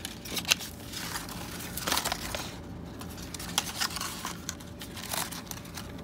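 Paper crinkling and rustling as curled paper straws and a folded paper pinwheel are handled and pushed together, with irregular small crackles and clicks.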